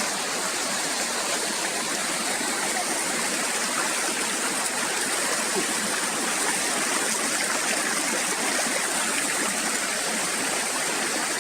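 Fast-flowing stream water rushing steadily and evenly, with no breaks.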